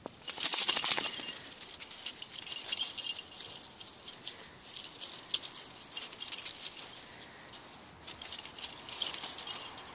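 Maple leaves falling thickly from the tree, a scatter of many light, crisp ticks as they come down, with a denser, louder flurry about half a second in.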